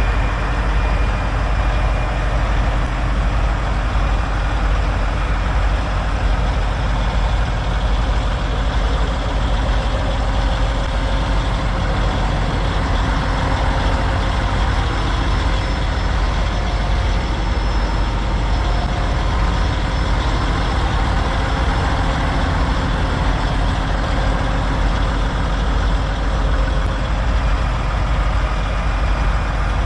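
Several parked semi-trucks' diesel engines idling together in a steady low rumble.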